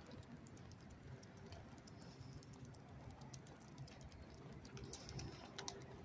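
Faint footsteps on pavement with light, irregular clicking and tapping.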